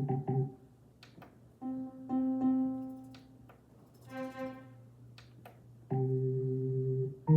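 Roland FP-30 digital piano playing a few separate notes and then a held chord near the end on one of its built-in non-piano voices, with faint clicks between the notes.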